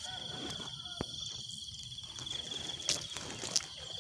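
Insect trilling steadily at a high pitch in a fast, even pulse, with a sharp click about a second in and a couple of light knocks near the end.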